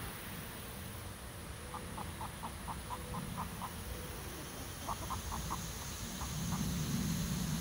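Young hens clucking: short notes repeated about four or five times a second, in one longer run, then a quicker short run, then two last clucks.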